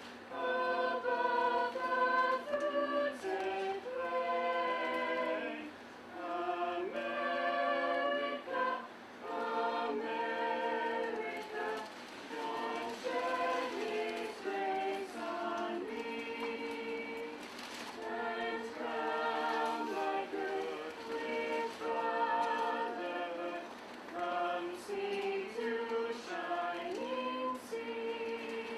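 A choir singing a cappella, several voices holding notes together in harmony, with short breaks between phrases.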